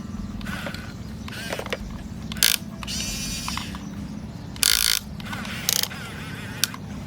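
Radio-controlled excavator's small electric motors and plastic gearboxes whirring steadily, their pitch gliding as the motors change speed, with several short loud bursts of scraping noise.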